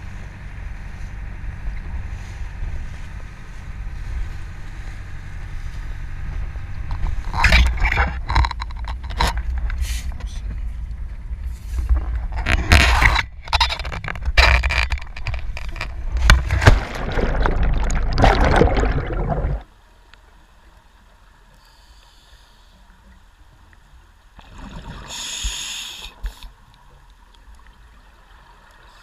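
Dive boat under way, its motor and rushing water and wind making a steady rumbling noise, with knocks and scrapes from gear on deck joining about a quarter of the way in. About two-thirds of the way through it cuts off suddenly to the quiet of underwater, where a scuba diver's regulator lets out one burst of exhaled bubbles near the end.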